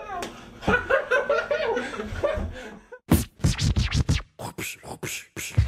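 A man's voice makes playful pitched vocal sounds for about three seconds. Then comes an uneven run of sharp percussive hits with short gaps between them.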